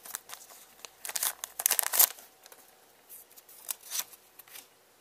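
Foil booster-pack wrapper crinkling and tearing as it is opened by hand, loudest about one to two seconds in, then softer rustles and clicks as the cards are slid out.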